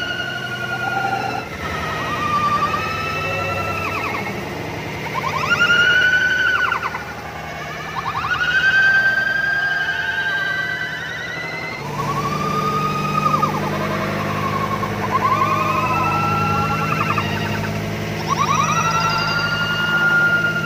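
Riders screaming on a swinging Viking pirate-ship ride, in rising and falling wails every couple of seconds as the boat swings, some held for a few seconds. A steady low hum comes in about halfway through.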